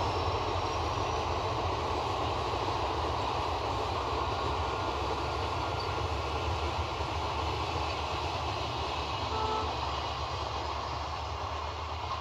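Passenger express train coaches rolling past on the rails, a steady rumble and clatter that eases slightly near the end as the train draws away.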